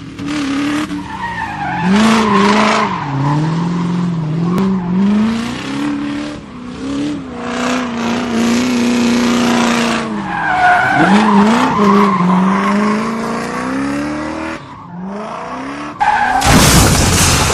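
Race car engine revving sounds rising and falling in pitch, with tyre-skid squeals. A loud rushing noise starts suddenly near the end.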